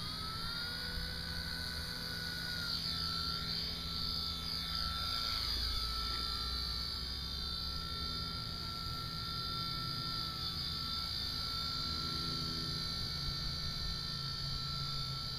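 Blade mCP X micro RC helicopter in flight, its electric motors and rotor giving a steady high-pitched whine whose higher tones slide up and down for a few seconds as the pilot works the controls.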